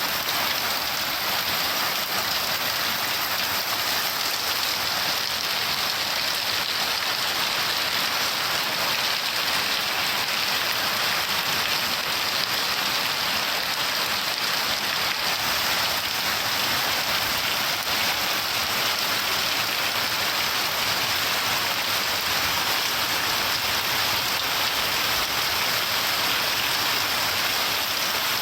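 Steady rain, an unbroken even hiss of drops with no thunder.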